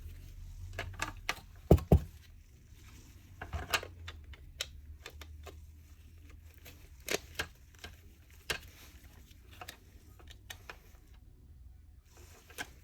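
Plastic parts of a vacuum cleaner head being handled and slid into place: scattered clicks and taps, with two sharp clicks close together about two seconds in.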